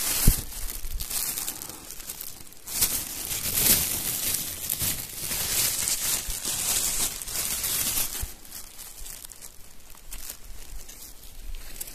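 Thin plastic bag crinkling and rustling as dry wild thyme seed heads are picked and pushed into it, busiest in the middle and quieter over the last few seconds.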